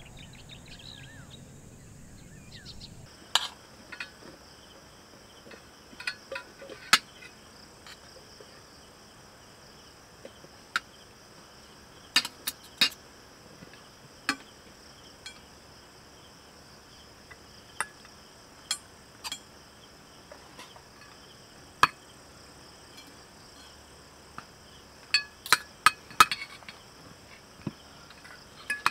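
Spoons and forks clinking and scraping against plates and a serving pan as food is dished out and eaten, in scattered sharp clinks that come in small clusters. A steady high insect drone goes on underneath.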